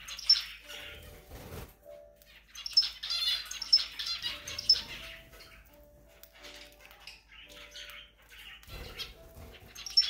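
Cockatiel pecking seed from an open hand: a run of sharp beak clicks and seed cracking, loudest about three to five seconds in, mixed with short high bird chirps.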